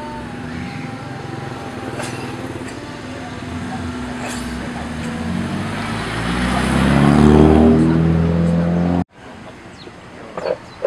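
A car's engine drives past, getting louder and rising in pitch as it accelerates. It is loudest about seven seconds in and cuts off abruptly near the end, over a steady traffic hum.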